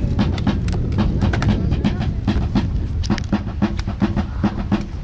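Flintlock muskets clicking and clattering, several sharp clicks and knocks a second, as a line of soldiers goes through a dry-fire prime-and-load drill.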